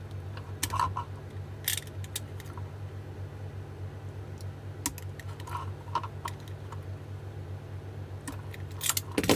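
Scattered light clicks and scrapes of a knife and hands working inside an e-bike battery pack, with a louder cluster of clicks near the end, over a steady low hum.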